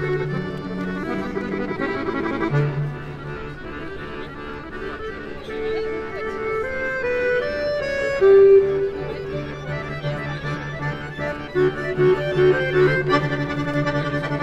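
A piano accordion played live as street music: held bass notes under a moving melody, going softer a few seconds in and then building up again.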